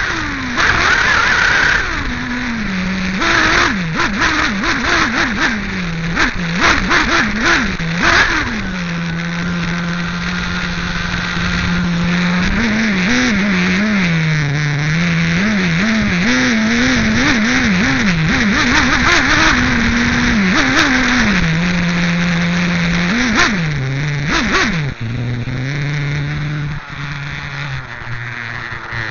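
Nitro engine of an RC8B 1/8-scale buggy, heard from a camera mounted right beside it, running and revving up and down with short steady stretches between, over a hiss of dirt and tyres. A run of sharp knocks and clatters comes in the first several seconds, and near the end the engine settles to a lower, steady idle.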